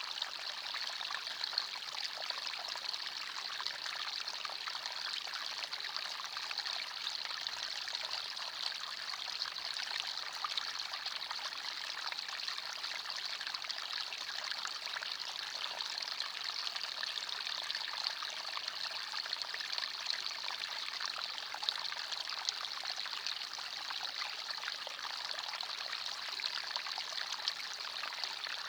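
Small forest stream flowing and trickling over stones, a steady, even rush of water with a bright splashing hiss.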